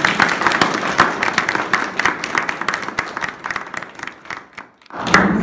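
A small audience applauding: dense clapping that thins out and fades away over about four seconds. A short loud sound near the end cuts off suddenly.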